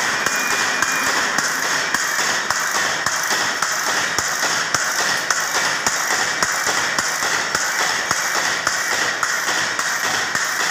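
Belt-driven wire-processing machine running, its electric motor turning a spinning drum as wire feeds through. The noise is steady, with a regular ticking about three times a second.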